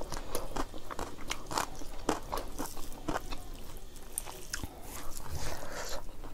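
Close-miked chewing of dried buffalo meat (sikuti) and rice: a string of short, irregular crunches and wet mouth clicks.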